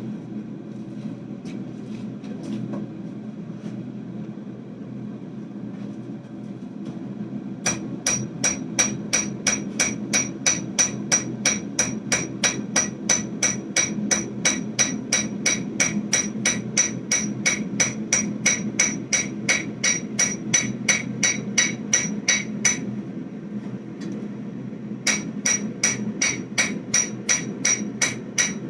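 Hand hammer striking a hot 1095/15N20 damascus steel bar on an anvil in quick, light, evenly spaced blows, about three a second, each with a bright metallic ring. The blows flatten out grooves and lumps in the bar. The hammering starts about a quarter of the way in, pauses briefly about three quarters through, then resumes, over a steady low rumble.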